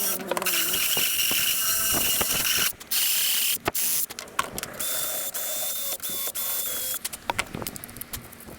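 Small handheld power tool grinding out the plastic inside an old Milwaukee drill housing. It runs in long stretches with brief stops about three and four seconds in, then gives way to quieter clicks and knocks after about seven seconds.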